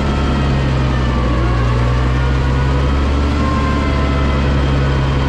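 Farm tractor engine running steadily at constant revs, heard from the seat right beside its upright exhaust stack.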